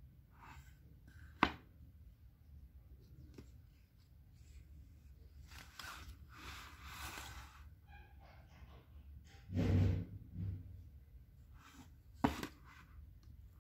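A glossy picture book being handled and its page turned by hand: soft paper rustling and sliding in the middle, a couple of sharp ticks, and a louder dull thump about two-thirds of the way through.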